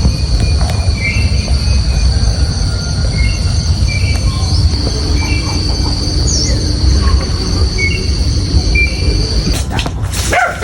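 Steady high-pitched insect drone with short bird chirps repeating over it, and a loud low rumble underneath. The drone cuts off abruptly shortly before the end, followed by a few sharp knocks.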